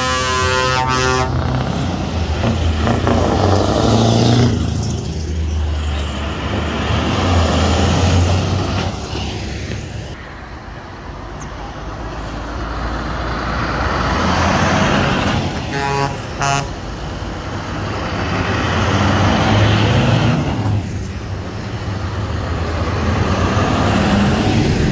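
Heavy diesel lorries driving past one after another, their engines swelling and fading as each goes by. A horn blast ends about a second in, and two short horn toots sound about sixteen seconds in.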